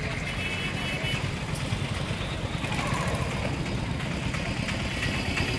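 Street traffic: a motor vehicle engine running steadily close by, with faint horns in the distance.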